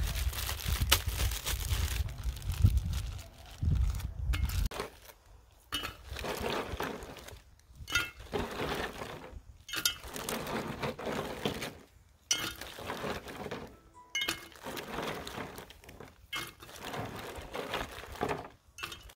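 Ice cubes dropped by the handful into a glass pitcher, clinking and clattering against the glass and against each other in repeated bursts every second or two. A low rumble runs under the first four seconds or so.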